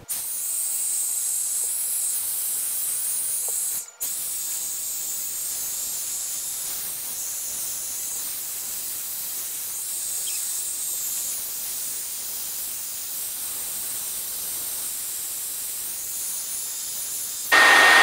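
Folding 1800 W ionic hair dryer with a concentrator nozzle blowing air in a steady hiss. It cuts out for a moment about four seconds in, and near the end it turns louder, with a steady whine.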